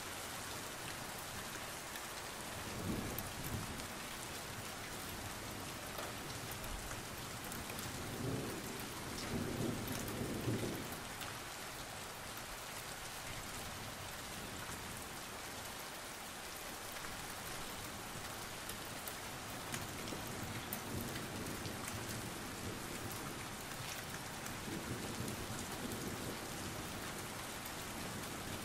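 Steady rain falling, an even hiss, with a few brief low rumbles rising under it.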